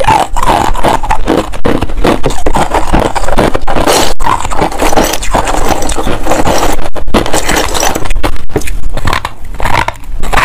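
Close-miked chewing and crunching of hard ice and freezer frost: a dense, continuous run of crackling crunches, with frost scraped out of the freezer by hand and a fresh bite into a chunk of frost near the end.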